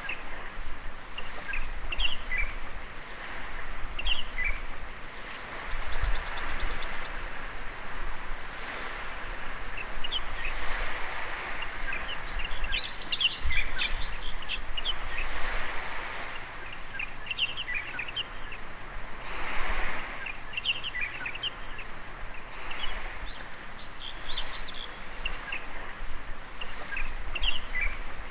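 Small waves washing up on a beach in repeated swells of surf, with birds chirping and calling throughout, including a quick run of chirps about six seconds in.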